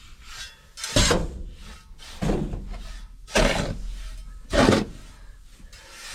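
Small shovel scooping and throwing distillers grain, four scraping strokes a little over a second apart, each starting sharply and trailing off.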